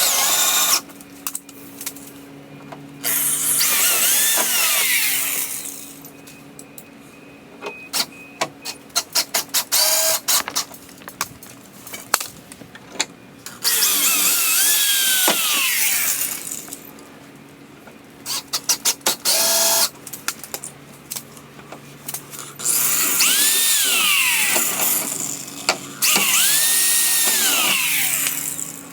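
Power drill drilling holes in a car's rear wing, run in four long bursts; the motor's whine falls in pitch as it winds down after each burst. Quick runs of clicking come between the bursts.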